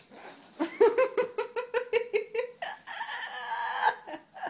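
A girl laughing hard in quick, clucking bursts, about five a second, then a long breathy wheeze near the end.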